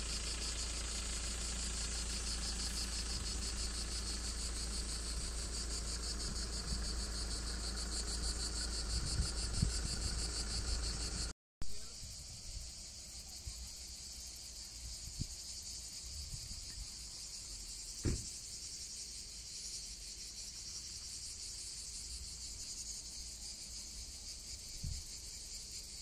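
Steady, high-pitched chirring of insects in the heat, a continuous chorus. Low wind rumble on the microphone in the first half stops at a cut about halfway through, and a single sharp click comes a few seconds later.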